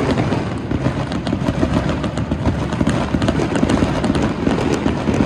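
Fireworks and firecrackers going off on all sides, very loud: a dense, continuous rumble of distant bangs with many sharp crackling pops throughout.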